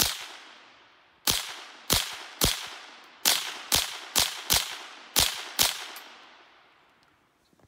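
Ruger 10/22 semi-automatic .22 rifle firing ten shots in quick, uneven succession over about six seconds, each crack followed by a fading echo.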